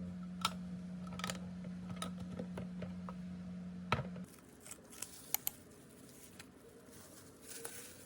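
A steady low electrical hum that cuts off about four seconds in, with scattered sharp clicks and taps of handling throughout.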